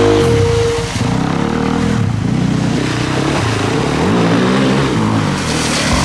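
Dirt bike engines revving, the pitch rising and falling again and again as the riders work the throttle.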